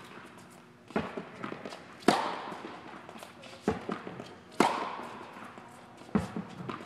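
Tennis balls cracking off a racket on forehand drives, twice and about two and a half seconds apart, each hit ringing on in the echoing indoor hall. Softer knocks of the ball bouncing on the hard court come before the hits, with light footsteps in between.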